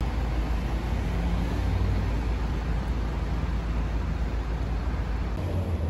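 City street traffic: a steady low rumble from a public bus's engine running close by, with the noise of passing road traffic.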